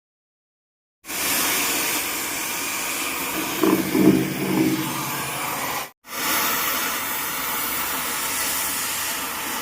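Arc welding on a steel loader bucket: a steady hiss that starts about a second in, cuts out briefly near the middle and resumes. A short, lower pitched sound is heard over it a few seconds in.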